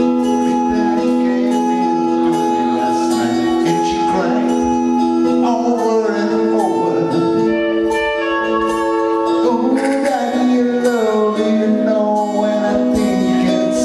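Live music: an electronic keyboard holds sustained chords, and a man sings a melody over it into a microphone from about five seconds in.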